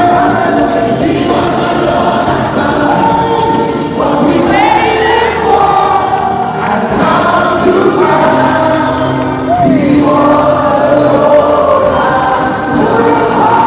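Many voices singing a gospel worship song together, with long held notes and a few sliding vocal runs.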